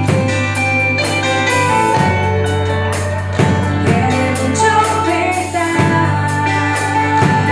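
A band playing a gospel worship song, with drums keeping a steady beat under sustained instrument notes and singing.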